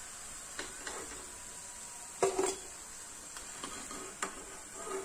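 Perforated metal skimmer knocking and scraping against a metal kadai as deep-fried pitha are scooped out of the oil. There are several light knocks, the loudest cluster about two seconds in, over a faint sizzle of the hot oil.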